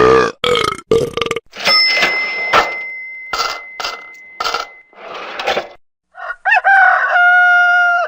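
A rapid string of short, unrelated comedy sound-effect clips played one after another with brief gaps between them, beginning with a belch-like sound and ending with a held, buzzy tone.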